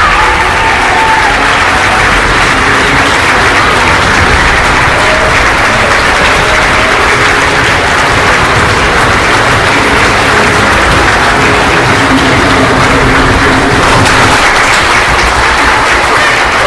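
A large audience applauding, steady and loud, with no break.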